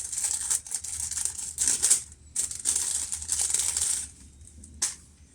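Crinkling and rustling of packaging being handled, presumably as a replacement gasket is taken out of its packet. The rustling comes in a run of quick crackly bursts for about four seconds, then one short rustle near the end.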